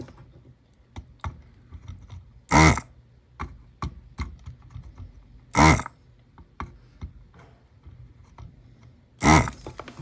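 Hakko desoldering gun's vacuum pump kicking on in three short bursts, about three seconds apart, as it sucks melted solder off capacitor leads on a circuit board. Light clicks and taps from the tool against the board come in between.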